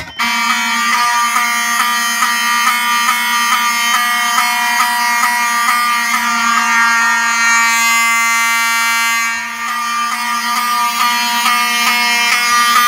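Wheelock 7002T-24 horn strobes and a Wheelock 34T-24 horn sounding a continuous, loud electronic horn tone, powered from a booster panel's filtered 24 V DC. The alarm starts abruptly the instant the fire alarm pull station is pulled.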